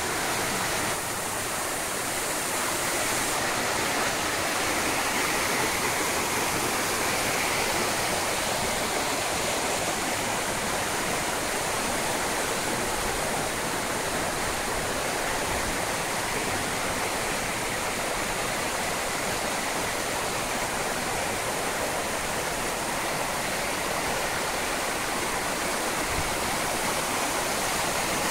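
Muddy storm floodwater rushing in spate down a barranco (ravine watercourse), a steady, unbroken torrent of turbulent water.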